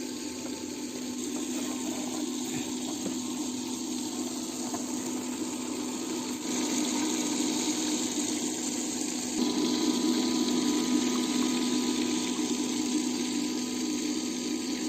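A small DIY vacuum cleaner's 12 V DC fan running with a steady hum and air rush. The sound shifts slightly twice, about six and nine and a half seconds in.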